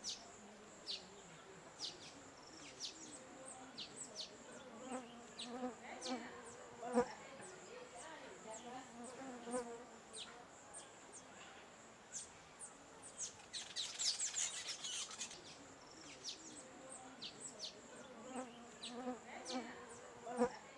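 Faint outdoor ambience: insects buzzing with a low wavering hum, birds giving short chirps about once or twice a second, and a steady high-pitched whine underneath. A quick flurry of chirps comes about two-thirds of the way through.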